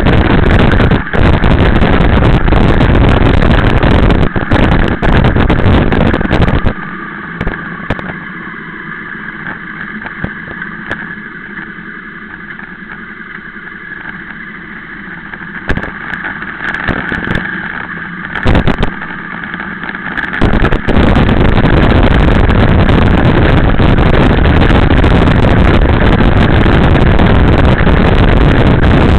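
Loud wind noise on the microphone from riding a motorcycle at speed. About seven seconds in it drops away to the steady hum of the motorcycle's engine running slowly in traffic, with a few brief knocks. A little after halfway the loud wind noise comes back.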